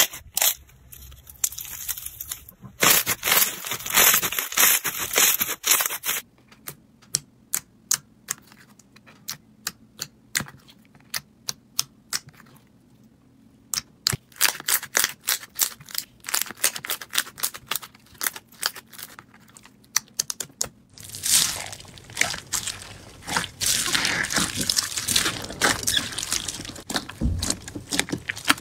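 Hands squeezing and poking slime in a tub: crackling at first, then a long run of sharp sticky clicks and pops from glossy glitter slime. In the last several seconds, dense crunchy crackling comes from clear slime packed with beads.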